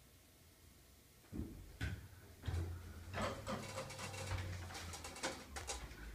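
Dover elevator doors opening at a floor: a clunk about a second in, then the door operator's low hum with clicking and rattling as the stainless doors slide open.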